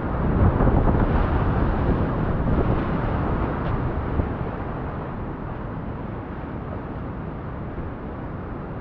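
Whitewater rapid rushing and splashing around a kayak running down it, loudest over the first few seconds as the boat drops through the foam, then settling to a steady rush of fast water.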